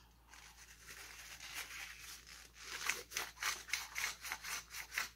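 Hand-twisted pepper mill grinding black peppercorns, a quick run of gritty crunching strokes, about four or five a second, starting a little past halfway, after a softer rubbing at first.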